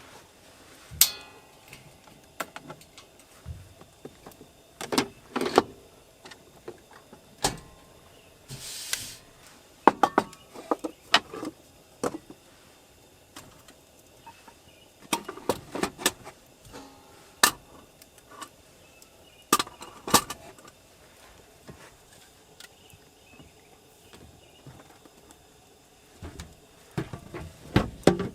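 Irregular knocks and clinks of objects being handled, about fifteen of them, with a short hiss about nine seconds in.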